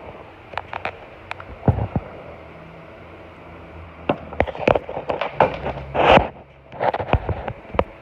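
Irregular clicks and clunks of metal engine parts and a valve spring tool being handled, sparse at first and then coming in a quick cluster, with a short scraping rustle in the middle of it.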